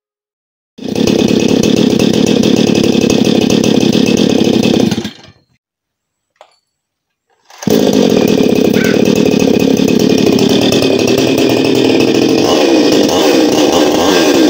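Two-stroke chainsaw running at speed, its Walbro carburettor just set with the L screw one and a half turns out and the H screw a quarter turn out. It stops about five seconds in and is running again about two and a half seconds later, its engine speed rising and falling near the end.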